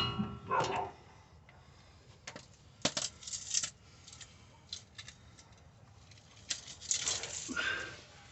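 Irregular light metallic clinks and taps of a bolt and hand tools against a car's rear suspension parts as the bolt is fitted.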